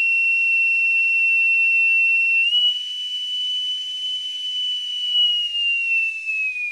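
A single long, high whistled note, steady and pure. It steps up slightly a little over two seconds in, holds, then slides down near the end.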